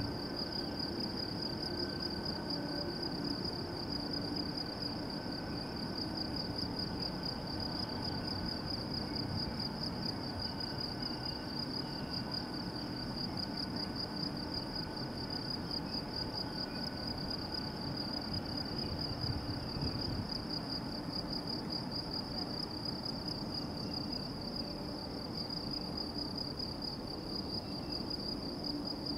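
Insects chirping in a steady, fast-pulsing high trill, with the low rumble of a taxiing Boeing 747-400F's jet engines underneath.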